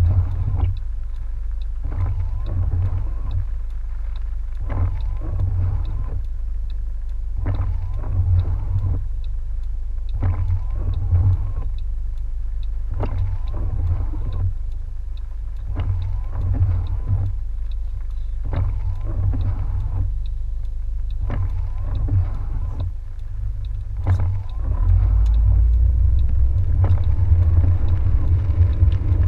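Car engine idling at a standstill, heard from inside the cabin as a low steady rumble, with the windshield wipers sweeping about every second or so across a rain-wet windshield. About 25 seconds in, the rumble grows louder as the car pulls away.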